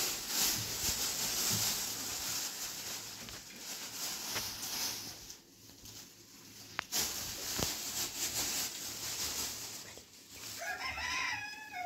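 A steady hiss of background noise, then near the end a single rooster crow that rises and falls.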